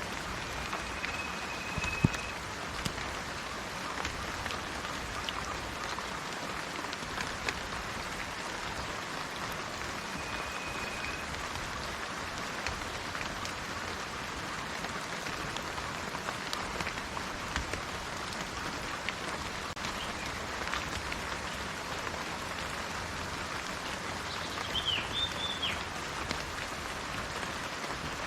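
Steady rain pattering, with single drops ticking and one sharp drop hit about two seconds in. A bird gives a held whistle twice, early and about ten seconds in, and a short call of a few sliding notes near the end.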